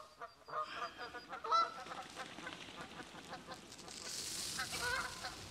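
Faint, stifled laughter from a person off-camera: short honking bursts of breath-laughs and a breathy stretch a little before the end.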